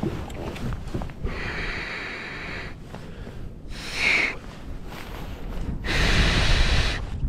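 A person breathing heavily close to the microphone: three loud breaths about two seconds apart, the middle one short.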